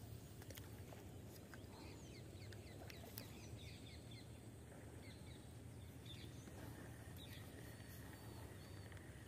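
Birds chirping and calling faintly in quick short notes over a very quiet marsh background.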